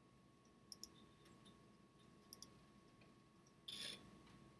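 Computer mouse clicks in a quiet room: two quick double clicks about a second and a half apart, then a short, louder burst of noise near the end.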